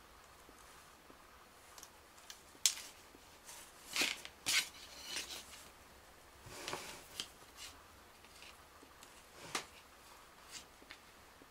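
Small handling noises as a thin wire and a crocodile-clip test lead are fiddled with on a circuit board: a handful of sharp clicks, with a softer scrape in the middle.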